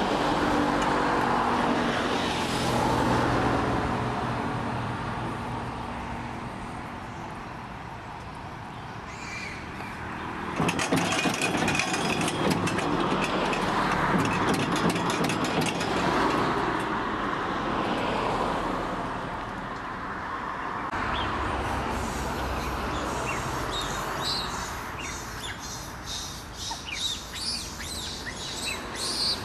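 Road vehicles passing, a steady wash of engine and tyre noise that swells and fades several times. Short high chirps come in during the last few seconds.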